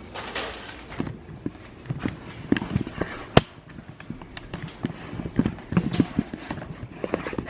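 Irregular knocks, clicks and rustling of things being handled in a kitchen, with one sharp click about three and a half seconds in.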